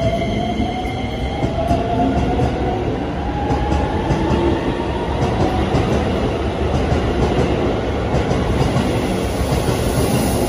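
Keisei 3000-series electric train pulling out: the whine of its VVVF inverter traction motors rises steadily in pitch over the first few seconds as it gathers speed, over the steady running noise of the cars rolling past.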